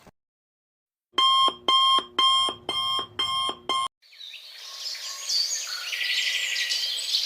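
An electronic alarm-clock beep repeating about six times, roughly two beeps a second. It then gives way to a wash of many high chirps over a hiss that grows louder: a birdsong ambience sound effect.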